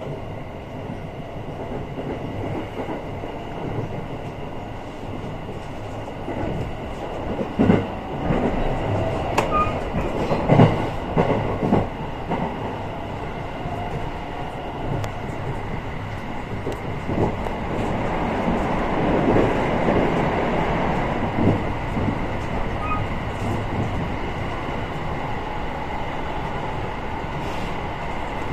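An electric commuter train running at speed, heard from inside the car: a steady rumble with a faint steady high whine. The wheels clatter over rail joints in a cluster of sharp knocks about eight to twelve seconds in, and again more lightly around twenty seconds in.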